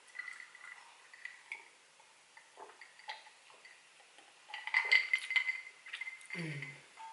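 A drink sipped and swallowed from a glass: faint clicks of the glass against the lips, a louder run of gulping sounds a little past halfway, and a short closed-mouth 'mm' near the end.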